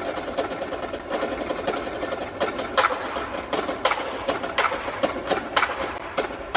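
Indoor drumline playing a fast run of sharp, dry clicks and drum strokes, with a few louder accented hits in the second half.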